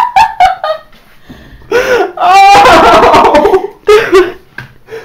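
A person's laughter in short bursts, then after a short pause a long, loud stretch of laughing in the middle, followed by a few more bursts.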